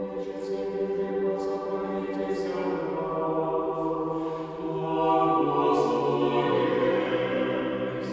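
Background music: a choir singing a slow chant in long held chords, the lowest voice stepping down near the end.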